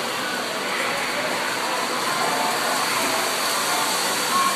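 Steady, noisy background din with a faint murmur of distant voices.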